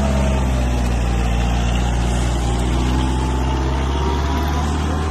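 Kubota MU4501 tractor's four-cylinder diesel engine running steadily under load while it pulls a tillage implement through dry soil.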